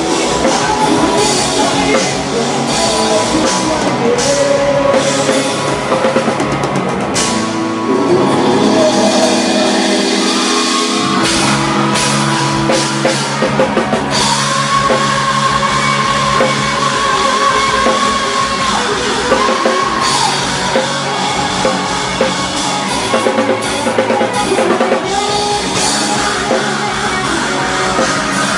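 Loud rock band music with a drum kit, and a man singing the melody into a microphone over it.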